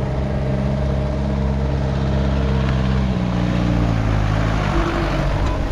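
A motor vehicle engine running steadily, with a rushing haze over it; the engine's note shifts about three seconds in.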